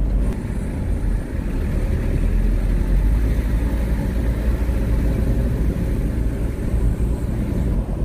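Car driving at a steady speed: an even low rumble of engine and tyres on the road.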